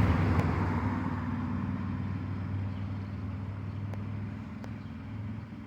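A motor vehicle going by and fading away, its engine hum and road noise dying down steadily.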